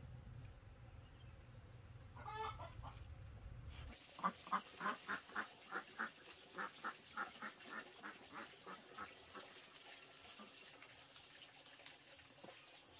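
Farmyard poultry calling: one call about two and a half seconds in, then a rapid run of about twenty short calls, some three a second, growing fainter. Beneath them from about four seconds on is a faint crackle of dried corn kernels being rubbed off the cob.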